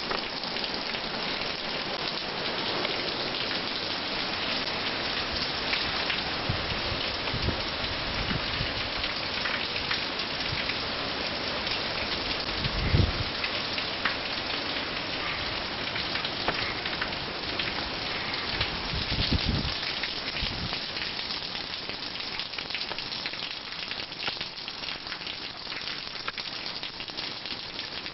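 Heavy hurricane rain pouring down in a steady hiss, with two deep low rumbles in the middle, the stronger one about halfway through.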